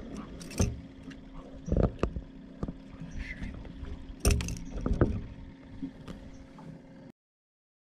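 Handling noise and a few sharp knocks as a small snook is held and unhooked on a boat, over a steady low hum. The sound cuts out abruptly near the end.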